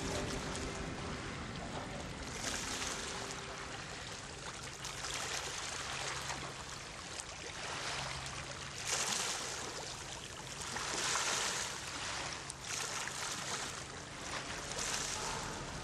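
Harbour water washing and lapping in recurring swells every couple of seconds, with a faint low steady hum underneath.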